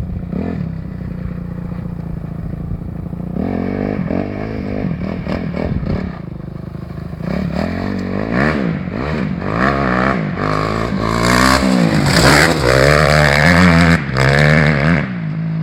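Off-road dirt bike engine revving up and down repeatedly as it rides over rough ground, getting louder as it comes closer and loudest near the end. Underneath runs the steady idle of another motorcycle close by.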